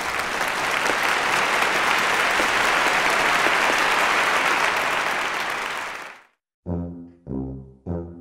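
Applause, steady for about six seconds and then cut off abruptly. After a brief silence, short low brass-like notes of music start, repeating a little under twice a second.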